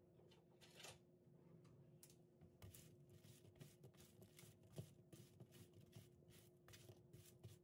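Faint rustling and light clicking as kitchen tongs toss oiled eggplant cubes about on a parchment-lined baking sheet, in many small scrapes and taps.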